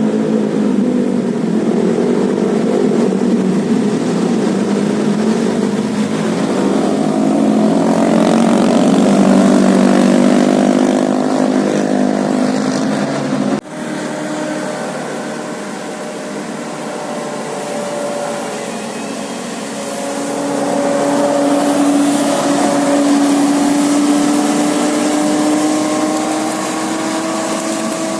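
Bus engine running and revving, with a stack of engine tones whose pitch climbs slowly over several seconds in the second half. The sound breaks off abruptly about 13 seconds in and starts again.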